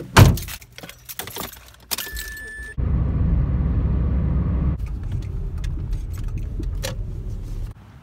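A heavy thump and keys jangling, then a short steady electronic tone. From about three seconds in, engine and road noise from inside a moving car, which eases slightly near the middle and cuts off near the end.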